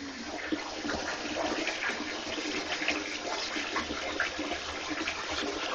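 Shower water running steadily and splashing.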